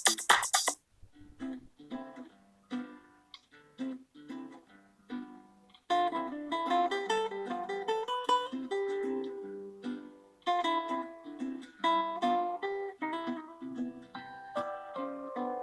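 A phone ringtone of plucked acoustic guitar. An electronic tone cuts off just under a second in. The guitar then plays a few sparse notes, and from about six seconds in it plays a fuller, louder melody.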